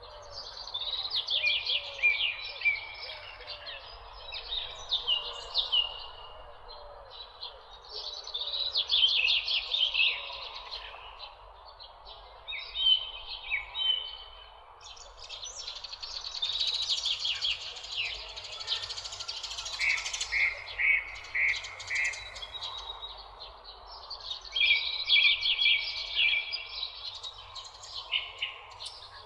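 Several songbirds singing and chirping in overlapping phrases, including a quick run of about five short notes some two-thirds of the way in, over a faint steady background hum.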